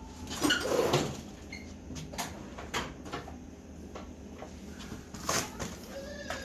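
Clicks, taps and knocks of small carburetor parts being handled and taken apart, with a few sharp knocks, the loudest around one second and five seconds in.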